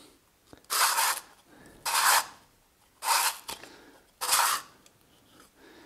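Hand-turned abrasive grinding cup scraping against a velomobile's drum-brake shoes while the brake is held lightly on, four rasping turns about a second apart. It is grinding the brake shoe linings clean and flat to improve braking.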